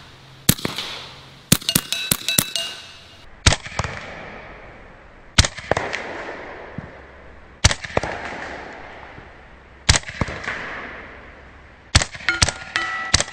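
Bintac T9 PCP air pistol firing loud single shots, with a quick string of shots about two seconds in and again near the end. Each string is followed by a steel gong ringing out. Between the strings come single shots about two seconds apart, each echoing away.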